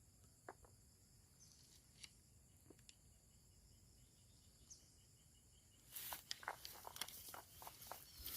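Faint outdoor ambience with a steady high-pitched insect drone and a few scattered clicks, then, about six seconds in, close crackling and rustling footsteps through vegetation.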